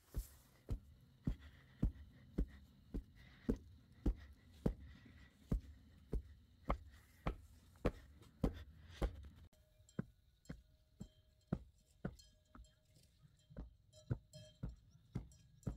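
Steady, evenly paced chopping strokes, about two a second, each a sharp knock.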